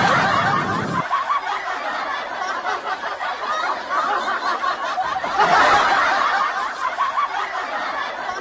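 Many people laughing together in a dense, continuous wash that swells again a little past halfway.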